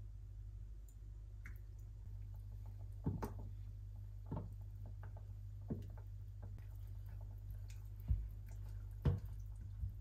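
Spoon and spatula clicking and tapping against a ceramic pot while a thick sauce is stirred and ingredients added, with a few soft liquid squishes. About five separate knocks, the loudest two near the end, over a steady low hum.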